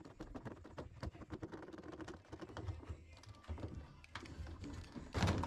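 Quick, irregular small clicks and rattles of hard parts being handled on a partly dismantled front-load washer, with one louder clunk near the end.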